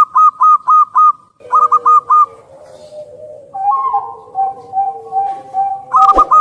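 Zebra dove (perkutut) song: a rapid run of short, hooked cooing notes, about four a second, which breaks off about a second in, then a second short run. From about halfway, a lower series of even notes follows about twice a second, and a sharp click comes near the end.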